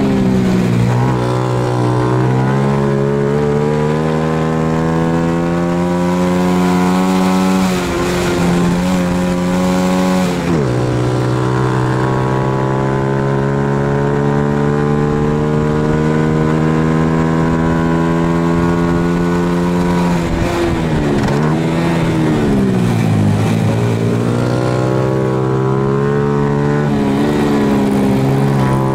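Racing Honda Super Cub's single-cylinder four-stroke engine heard on board at high revs. The pitch climbs slowly for long stretches and falls sharply about ten seconds in. Past the middle the revs dip and recover twice.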